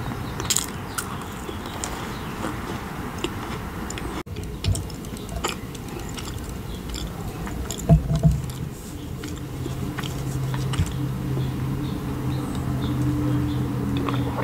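Close-miked mouth sounds: small crisp crackles of biting and chewing a macaron, then, after a couple of low knocks of the bottle being handled, drinking from a small bottle of cold brew coffee. A low steady hum runs under the second half.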